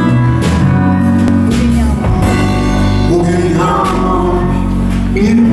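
A man singing over acoustic guitar, with sustained low bass notes underneath.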